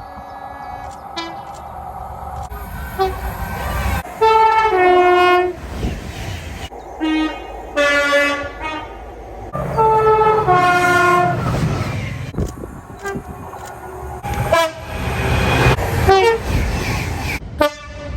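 Two-tone train horns sounding several times, each blast stepping from a high note down to a low note, over the low rumble of a train.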